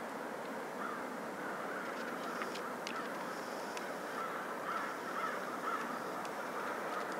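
A flock of crows cawing, with scattered short calls over a steady background of outdoor noise.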